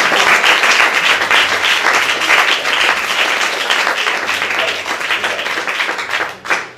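Audience applauding, many hands clapping, dying away shortly before the end.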